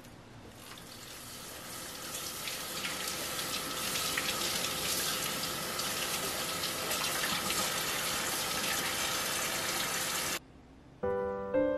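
Kitchen tap running, its stream splashing onto lettuce and a tomato in a plastic colander as the produce is rinsed. The water builds up over the first couple of seconds, runs steadily, and stops suddenly near the end.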